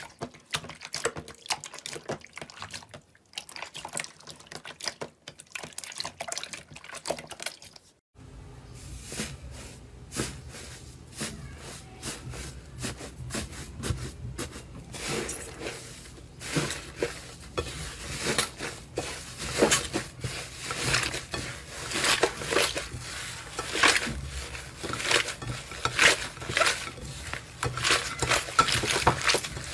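Slime being squeezed and worked by hand: a dense run of wet clicks, pops and crackles. About 8 seconds in it cuts to a louder clip with a low hum underneath.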